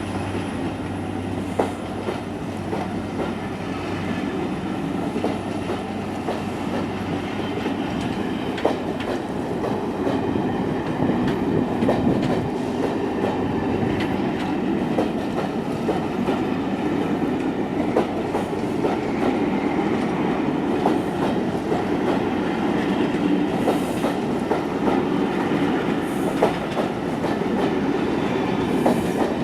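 A passing train rolling by steadily, its wheels clicking irregularly over rail joints, a little louder from about ten seconds in. A low hum fades out in the first few seconds.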